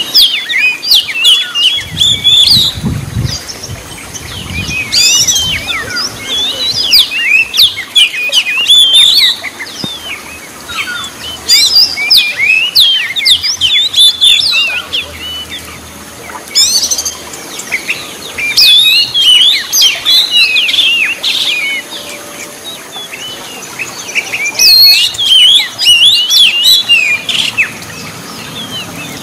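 Oriental magpie-robin singing: loud bursts of rapid, varied whistles and chattering notes, about five phrases of a few seconds each with short pauses between them.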